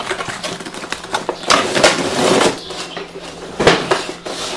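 A cardboard drone box being opened by hand and its clear plastic tray taken out: irregular rustling, sliding and scraping of cardboard and plastic packaging, with a sharp knock a little before the end.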